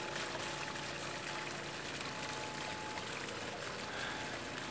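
Basalt column fountain running steadily, water spilling from the columns into a basalt basin with a continuous trickling splash.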